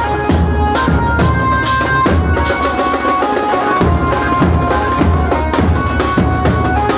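Banjo party band playing loud amplified music: a melody of held notes that step up and down in pitch over a driving drum beat with heavy bass-drum hits, about two a second.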